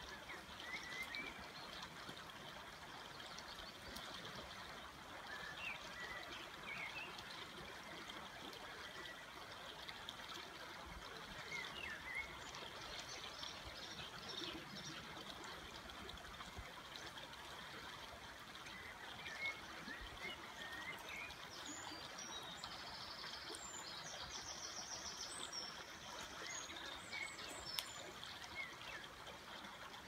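A river flowing steadily, with scattered short bird chirps and a rapid, evenly repeated high trill near the end.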